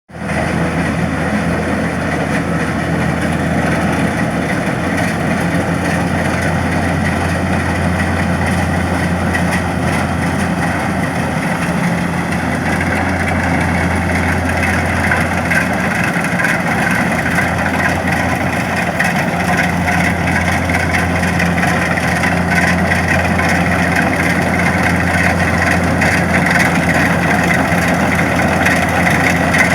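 Kubota DC-70 rice combine harvester's diesel engine running steadily, with the hum and whir of its machinery.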